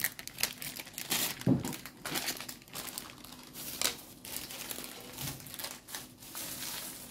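Plastic ice-cream wrapper being handled and crumpled: irregular crinkling and rustling, with one knock about a second and a half in.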